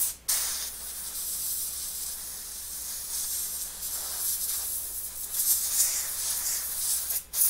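Can of compressed air spraying in a long, steady hissing blast, blowing alcohol off a circuit board to dry it; the spray stops for a moment near the start and again near the end.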